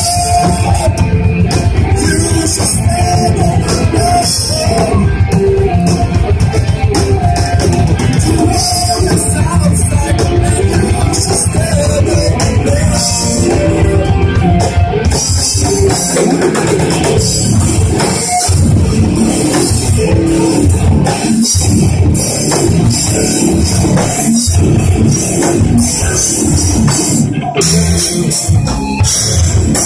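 Metalcore band playing live: distorted electric guitars over a pounding drum kit, dense and loud, with a few brief stops in the riffing in the second half.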